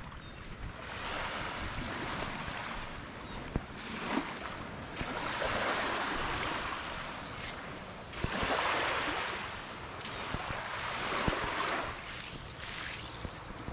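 Sea water washing and splashing around a kayak, coming in repeated surges of a second or two, with wind on the microphone and a few light knocks.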